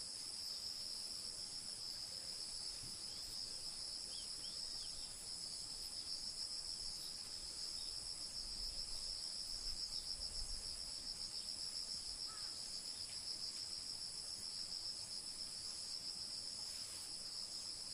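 Steady chorus of insects, a continuous high-pitched trill, with a few faint short chirps about four seconds in.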